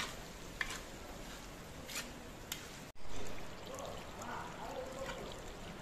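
Metal skimmer scraping and clinking against a kazan as plov rice is scooped and turned, with a few sharp clicks. Indistinct voices murmur in the background. There is a short break about three seconds in, and the sound is louder after it.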